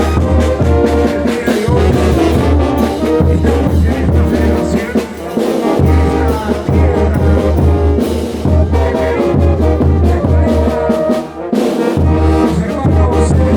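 Bolivian carnival brass band playing a dance tune, trumpets and trombones over a steady, pulsing low bass line.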